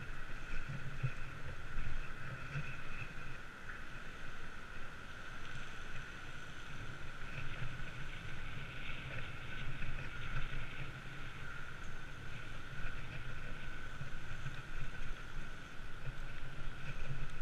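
Steady wind and riding noise picked up by a handlebar-mounted action camera as a bicycle rolls along a paved path, with a constant low rumble and a steady hum-like hiss and no distinct events.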